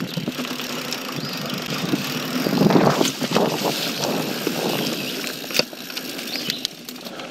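YT Jeffsy full-suspension mountain bike ridden fast down dirt singletrack: tyre rumble on dirt and leaves with the bike rattling and knocking over bumps, and wind rushing over the camera microphone. The rumble is loudest about three seconds in, and there is one sharp knock a little past halfway.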